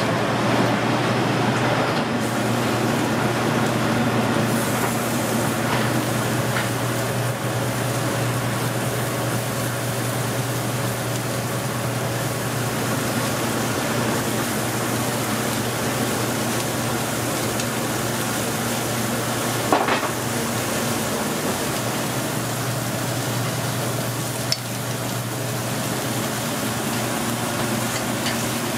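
Steaks sizzling on a flaming grill, over a steady low kitchen hum. Two sharp clicks come near the end.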